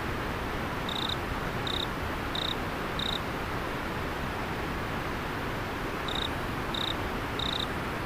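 Steady rush of river water with a cricket chirping over it: four short chirps about a second in, then three more near the end.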